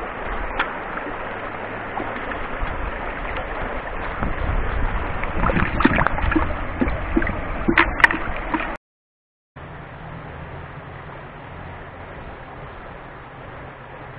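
Creek water running and gurgling, with splashes and sharp knocks that grow louder through the middle. The sound cuts off abruptly about two-thirds of the way through, and a quieter steady hiss with a low hum follows.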